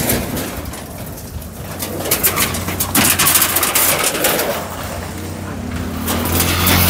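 Corrugated iron fence sheets being pushed and pried down with a wooden pole, the metal clattering and scraping in a run of sharp knocks and rattles.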